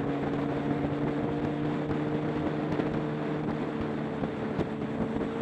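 Motorcycle engine running at a steady speed on the road, its pitch holding even, with wind rushing over the microphone.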